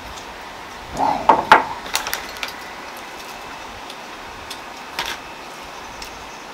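Tableware clinking and knocking during a meal: a quick cluster of sharp clicks about a second in, and a single click near five seconds, over a steady background hiss.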